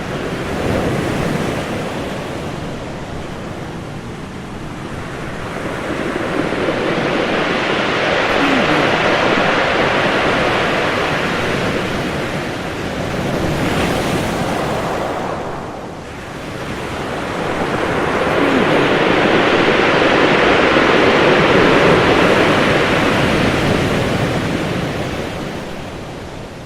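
Ocean surf: waves breaking and washing up the shore in a continuous rush of water. It swells twice into long crashes, about a third of the way in and again past the middle, easing back between them and fading toward the end.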